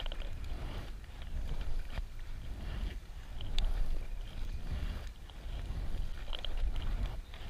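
Kayak paddle strokes: a double-bladed paddle dipping and pulling through river water in a repeated rhythm, with splashes and drips, over a low rumble. A sharp tick comes about three and a half seconds in.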